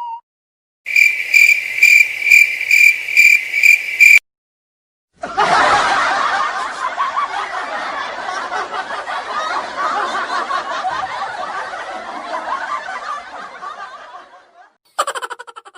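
A string of separate comedy sound effects. First comes a pulsing electronic beep, about two to three pulses a second, for some three seconds. Then, after a short gap, a long stretch of many overlapping laughing voices that slowly fades out, and at the very end a quick rattle of clicks.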